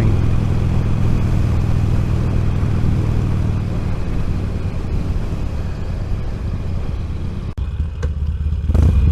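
Heavy wind noise and motorcycle engine and road rumble at highway speed, picked up by a microphone inside the rider's helmet: a loud, steady low rumble under a rushing hiss. About seven and a half seconds in, the sound briefly drops out and then comes back with a slightly different tone.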